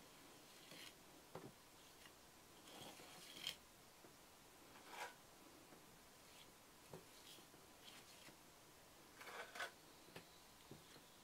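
Small metal trowel scraping and smoothing clay plaster over a cracked clay wall: faint short strokes with pauses between, the strongest a little after three seconds in and near the end.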